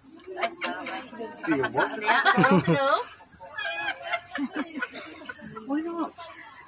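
Steady high-pitched chorus of insects, one unbroken shrill drone, with people's voices talking faintly underneath.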